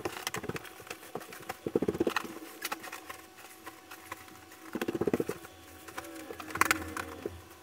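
Bed being made: a duvet smoothed and pillows plumped and set in place, with soft rustling and patting of the bedding in a few short bursts.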